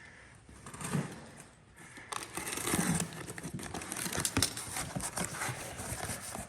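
A box is being opened by hand, with packaging rustling and crinkling. The rustle gets busier, with many small clicks and crackles, from about two seconds in.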